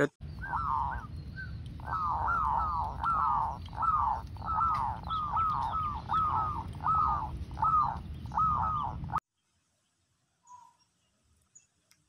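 Zebra dove calling: a run of short cooing notes that each slide downward, about one and a half a second, over a low steady rumble. The calling cuts off abruptly about nine seconds in.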